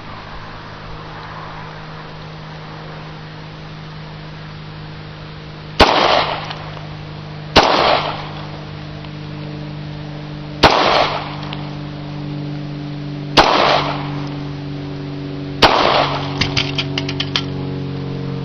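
.40-calibre H&K gun firing five single shots of full-metal-jacket rounds into a hard drive, each shot sharp with a short echo, spaced two to three seconds apart. A quick run of faint clicks follows the last shot.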